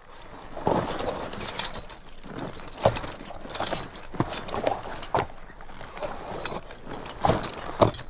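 Horse saddle and harness tack being moved: metal fittings jangling and rattling in irregular bursts, with several dull knocks.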